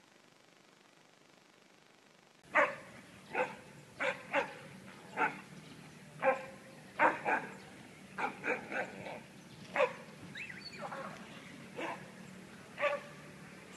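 A small dog barking in short single barks and pairs, roughly one a second, starting about two and a half seconds in after a near-silent opening.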